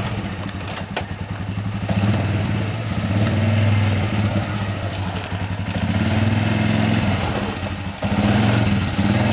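Can-Am ATV engine working at low speed as the quad crawls over rock, its note swelling and easing with the throttle and dipping briefly near the end. There are a few sharp clicks along the way.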